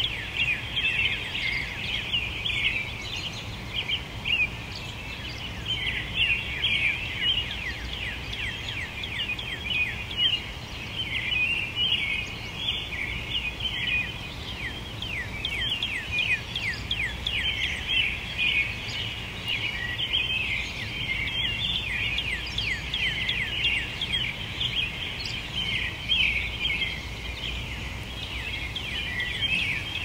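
A dense chorus of wild songbirds, many short chirps and quick down-slurred notes overlapping without a break, over a steady low background rumble.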